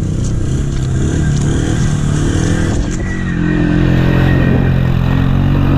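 ATV engine revving, its pitch climbing about halfway through and then holding higher and louder.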